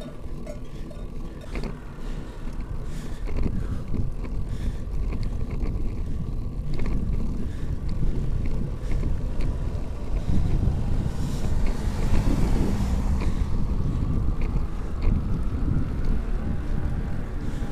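Wind buffeting the microphone of a camera on a moving bicycle, a steady low rumble with road noise and scattered small clicks and rattles; it grows louder about two thirds of the way through.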